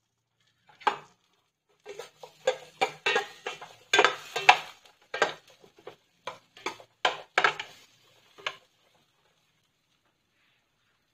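Metal ladle stirring in a stainless steel frying pan, knocking and scraping against the pan in a quick, uneven run of clatters that begins about a second in and stops a few seconds before the end.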